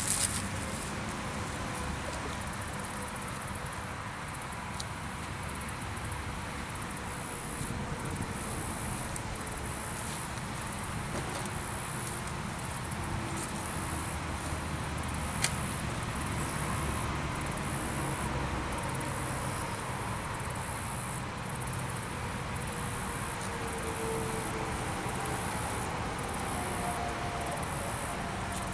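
Insects chirring in a steady high-pitched hiss, over a low steady rumble, with one sharp click about fifteen seconds in.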